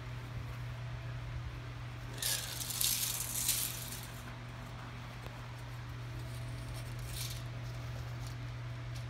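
Retractable steel tape measure blade rattling as it is pulled and shifted across artificial turf, in one burst of about a second and a half and a shorter one later, over a steady low hum.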